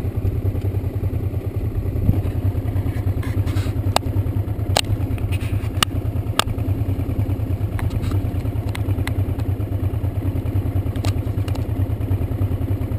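Honda Transalp's V-twin engine running steadily under way on a rough dirt track. A few sharp clicks and knocks come through the middle of the run and again near the end.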